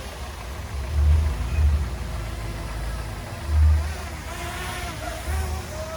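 Diesel engine of earthmoving machinery running under varying load, with several deep low surges and a wavering whine in the second half.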